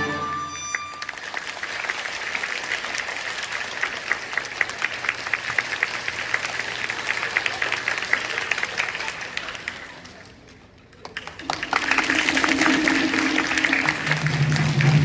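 Audience applause after the final chord of a melodica ensemble. The clapping fades almost to nothing about ten seconds in, then comes back strongly, joined by steady low held tones.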